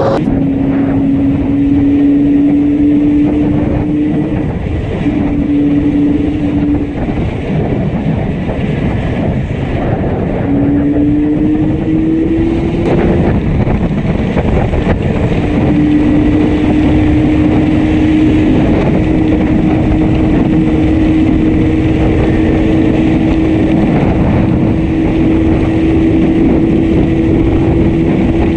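Yamaha RD350's two-stroke parallel-twin engine running under way with a heavy misfire on one cylinder, over loud wind and road noise. The engine note drops out and comes back a few times, then holds steady through the second half.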